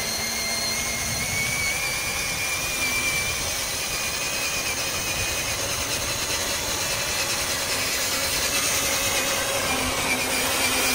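Battery-powered electric motor of a homemade ride-on toy truck whining steadily as it drives, a high thin whine that rises slightly near the end, over a steady rushing noise.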